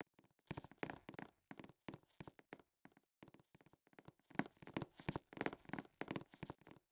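Faint, irregular tapping and clicking, a scattering of light knocks that grows busier in the second half.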